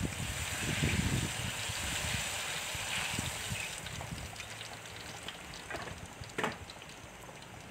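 Hot oil sizzling and bubbling around battered banana fritters deep-frying in a large metal pot, loudest in the first few seconds and then easing off. A single sharp tap about six and a half seconds in.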